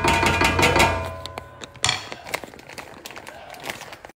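A spatula knocking and scraping in a steel pan of sauce. A ringing clank fades over the first second or so, a second clank comes about two seconds in, and quieter stirring follows.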